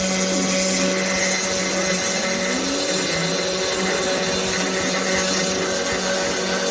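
A homemade CNC machine running: a steady motor hum under loud hiss, with a short rising whine about two seconds in.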